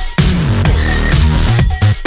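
Background electronic dance music with a heavy bass beat.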